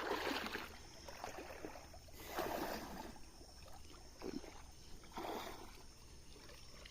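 Water splashing and sloshing in irregular bursts, about one a second, as a fishing net is dragged through a river by people wading.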